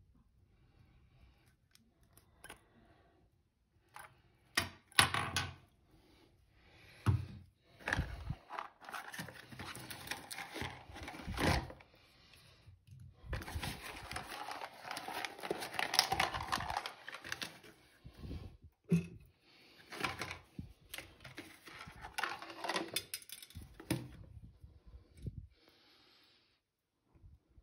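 Cardboard box and paper packaging rustling and tearing as a replacement tap cartridge is unpacked. Sharp clicks and knocks of small parts being handled come in the first eight seconds and again now and then.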